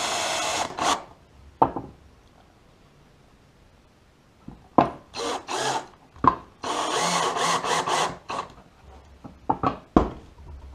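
DeWalt cordless drill running in short bursts into a thin wooden fence strip. It spins up briefly at the start, gives a few short bursts about five seconds in and a longer run about seven seconds in, with a few sharp knocks in between.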